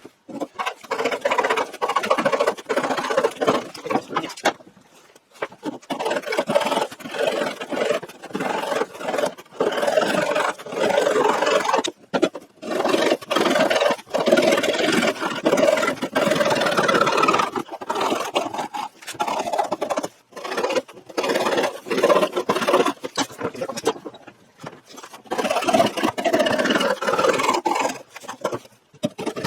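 Saw cutting through a board, in several spells of rapid scraping strokes with short pauses between them.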